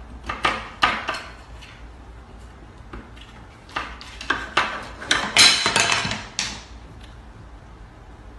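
A spoon jammed through cabinet door handles rattling and knocking against them as a cat paws and pulls at the door, a string of sharp clacks that comes in bursts and is loudest and thickest a little past the middle.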